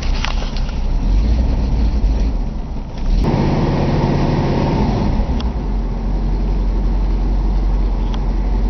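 1966 Ford Thunderbird's V8 engine idling cold, just after starting from a long sit. About three seconds in it suddenly gets louder, then settles back over the next couple of seconds.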